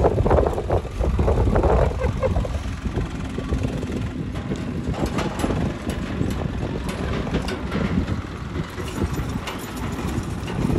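Tractor engine running with a steady low rumble, and voices briefly near the start.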